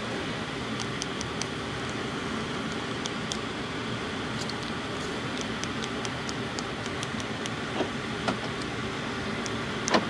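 Steady background rush with a scattering of light clicks: fingers pressing the buttons of a 2021 Ford Bronco's keyless entry keypad to enter the code. A couple of soft knocks come near the end.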